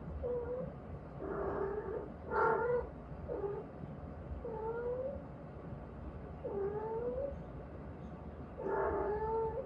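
A cat meowing over and over: about seven drawn-out cries spaced a second or two apart, several rising in pitch, the loudest about two and a half seconds in.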